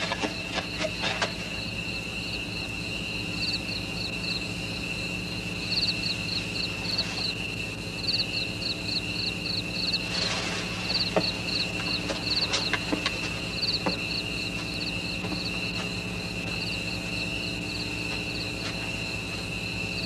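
Insects calling: one steady high trill, with runs of quick chirps, about five a second, coming and going above it. A low steady hum and a few faint clicks lie underneath.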